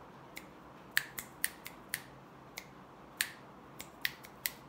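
Finger snaps, about a dozen sharp snaps at uneven intervals, some close together and some further apart: an irregular, changing rhythm rather than a steady beat.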